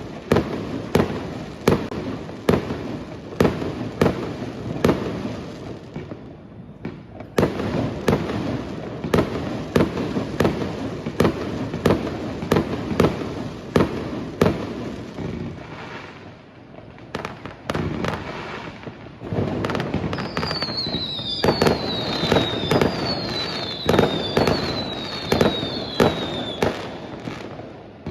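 Fireworks going off: an irregular run of sharp bangs, roughly one or two a second, with crackling between them. From about two-thirds of the way through, repeated short falling whistles join the bangs.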